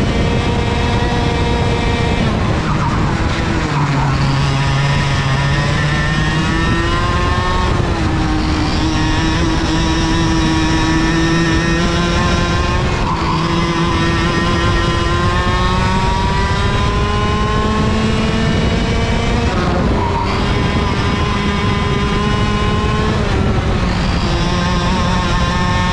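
IAME KA100 100cc two-stroke kart engine at race pace. Its pitch climbs steadily along the straights and drops off sharply about four times as the driver lifts and brakes for corners.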